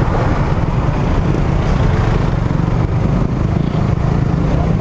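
Suzuki Raider R150 Fi motorcycle's single-cylinder four-stroke engine running steadily at low revs while riding slowly in traffic, heard onboard. The engine is still in break-in, so it is not revved hard.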